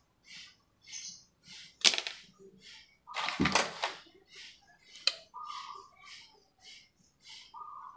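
Hand work on motorcycle wiring: a sharp snap about two seconds in, a rustle of about a second, and another sharp click about five seconds in. Under it a bird chirps repeatedly, with a few longer whistled notes.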